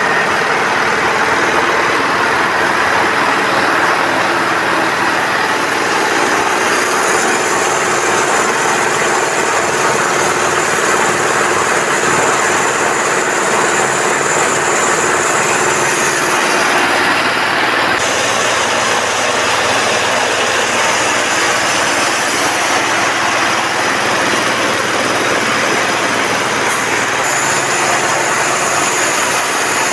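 Engine-driven farm feed machinery, a corn crusher and a feed mixer, running steadily. The sound changes abruptly about 18 seconds in.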